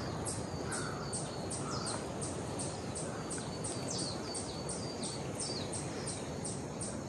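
Cicada calling in a fast, even series of high pulses, about three a second, with a few faint lower calls mixed in.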